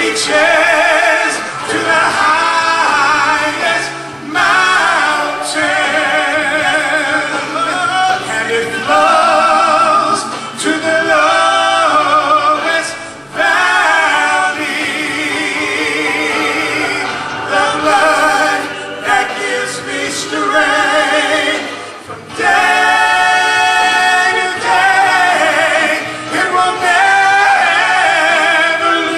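A man and a woman singing a gospel duet through handheld microphones over a recorded backing track, with short breaths between phrases.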